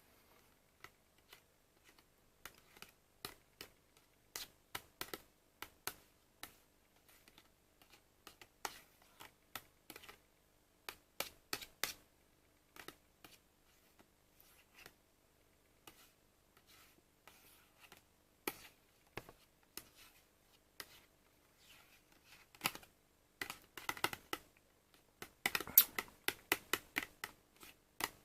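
Plastic yogurt cup and its packaging being handled, with irregular clicks and crackles that come thick and loudest near the end.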